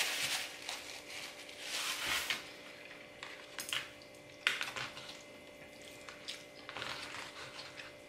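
A metal fork clicking and scraping against a plastic takeout tray as spaghetti is twirled, in scattered short strokes. A paper napkin rustles near the start.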